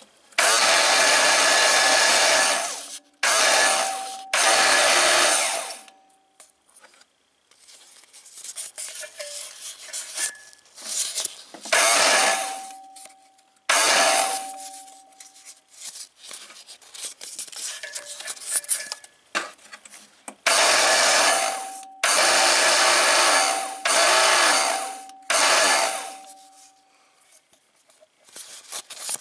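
Strip of sandpaper pulled back and forth around the steel shaft of a Briggs & Stratton electric starter, cleaning up the shaft for its pinion gear. It makes rasping strokes of one to two seconds each, in three runs with pauses between them.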